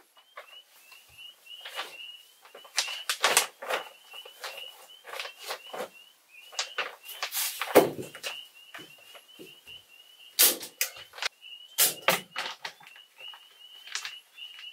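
A hand staple gun clacking as plastic vapor barrier sheeting is stapled up to wood framing, with the poly sheet crinkling: an irregular string of sharp snaps and rustles, the loudest about eight seconds in.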